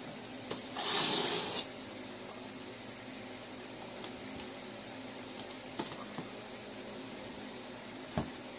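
Gift-wrapping paper ripped by a child's fingers in one short, loud rustling tear about a second in, then a steady faint hiss with a couple of light taps on the box near the end.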